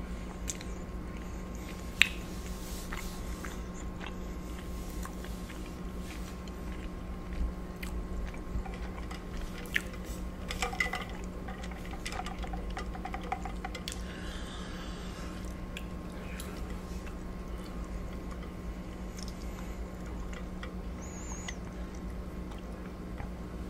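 Close-miked chewing and mouth sounds over a steady low hum, with one sharp click about two seconds in. Near the end comes a short sip through a drinking straw.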